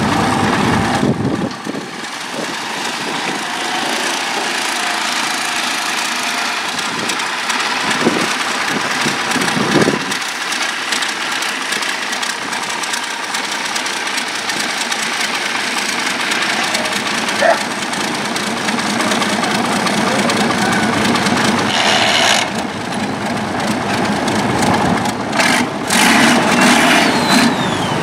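A long-tail boat's large, exposed turbocharged engine running.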